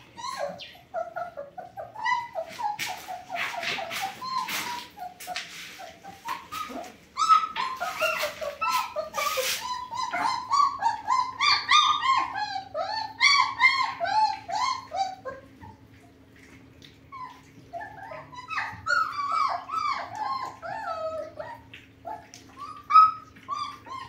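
German Shepherd puppies whining and yipping in many short, high, wavering cries. There are a few short noisy bursts in the first half.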